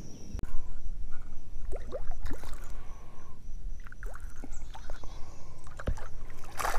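Water sloshing against the hull of a small boat, with a few sharp knocks from handling the spincast rod and reel, the loudest near the end.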